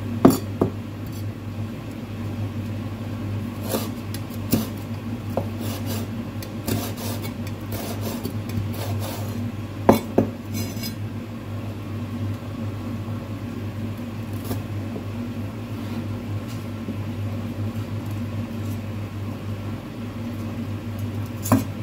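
Steel cleaver knocking and tapping on a wooden cutting board as red chilies are sliced and their seeds scraped out. The knocks come irregularly and are mostly light, with sharper strikes near the start, two close together about halfway, and one near the end, over a steady low hum.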